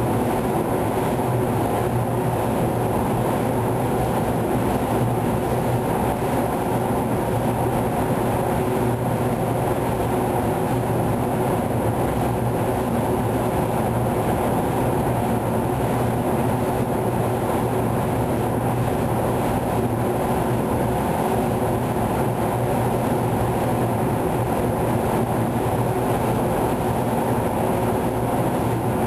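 Paint booth air system running: a steady drone of rushing air with a constant low hum, unchanging throughout.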